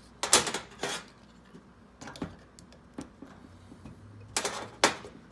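Metal clinks and clatters, about six sharp knocks spread over a few seconds, as the thin welded razor-blade sample is handled and flipped over on its metal backing.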